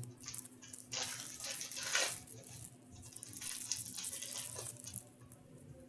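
Foil wrapper of an Upper Deck hockey card pack crinkling and tearing open, in two stretches of rustling: one about a second in and another from about three seconds.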